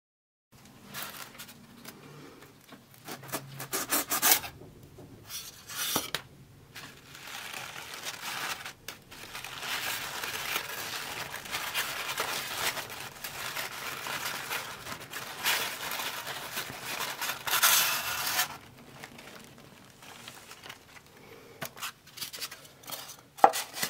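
Hands handling a polystyrene shipping box: polystyrene rubbing and scraping, then tissue paper rustling and crinkling in bursts as it is pulled open around plastic vials, with a sharp knock near the end.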